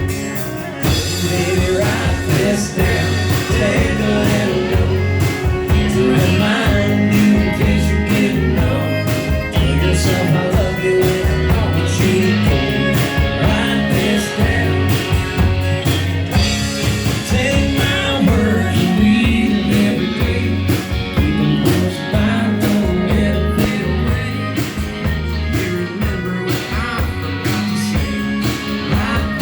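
A country band playing with electric guitar and drums, keeping a steady beat.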